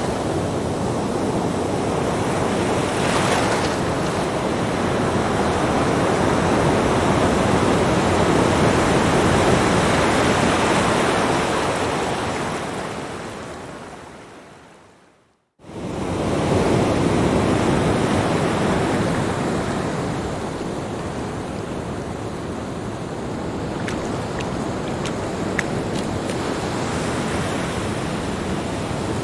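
Small ocean waves breaking and washing up a sandy beach: a steady surf that swells and eases. About halfway through, the sound fades away to silence over a few seconds, then cuts back in suddenly.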